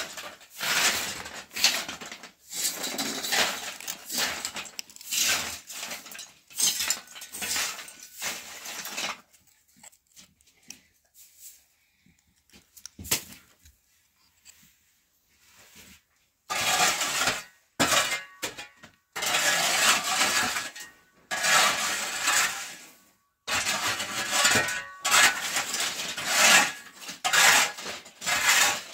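Straw broom sweeping a concrete floor in repeated strokes, with wooden scraps clattering as they are pushed along. After a pause of several seconds, a long-handled shovel scrapes dirt across the concrete floor in a run of repeated strokes.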